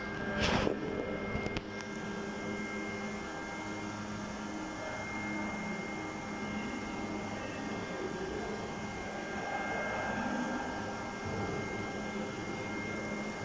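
Steady mechanical hum of machinery with a few held tones, under the roof of an aircraft hangar; a brief loud rustle of the phone being handled about half a second in.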